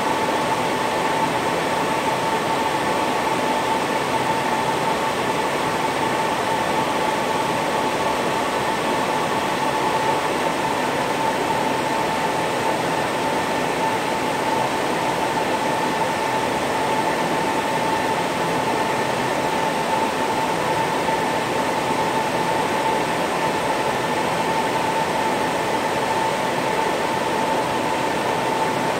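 Server cooling fans running, a steady whooshing hum with a constant high whine in it; one thread of the whine stops about ten seconds in.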